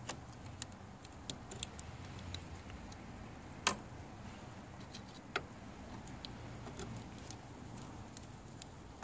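Faint scattered clicks and light metallic taps of a Torx screwdriver working the small screws out of a diesel fuel filter cover, with one sharper click a little under four seconds in and another about five and a half seconds in.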